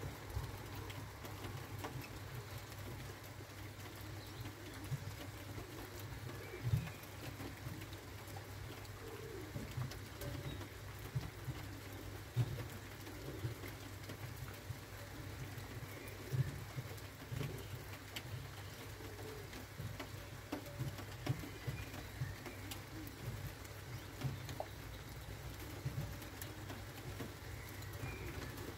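Steady rain with irregular drops tapping close by, and a pigeon cooing now and then through it.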